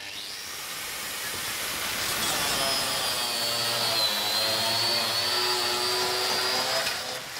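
Electric angle grinder grinding steel. The noise builds over the first couple of seconds and then carries a high whine. The whine sags a little in the middle as the disc is pressed into the metal, then comes back up. It eases off briefly near the end.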